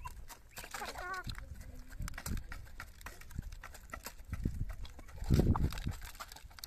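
Chickens pecking grain from a plastic feeder tray, their beaks making rapid, irregular taps on the plastic. A short warbling chicken call comes about a second in, and a brief low rush of noise comes about five seconds in.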